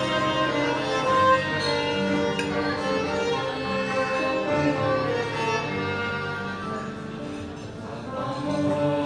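Music: a string arrangement led by violin playing sustained melodic notes over a low bass line, easing off a little near the end before swelling again.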